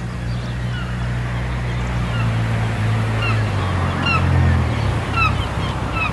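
Many small birds chirping in short, quick calls, over the low steady hum of an engine that stops about three-quarters of the way through.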